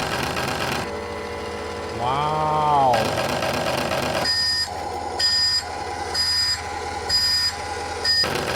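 RC Scania 770S toy truck's built-in sound module playing through its small speaker: a steady hum, then from about halfway a run of evenly spaced high electronic beeps, about one a second.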